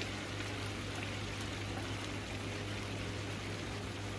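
Mutton pieces frying in a steel pot with freshly added green chilli, garlic and ginger paste: a steady, even sizzle over a low steady hum.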